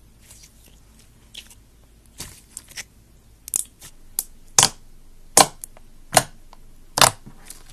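Fingers pressing and poking into glossy glitter slime, giving small sticky crackles and then four loud pops a little under a second apart in the second half as air is squeezed out.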